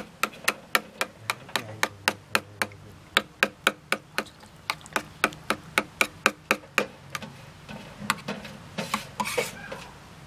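A spoon beating raw eggs and chopped onion in a stainless steel pot, clinking against the pot about four times a second. The beating stops about seven seconds in, and a short rustling scrape follows.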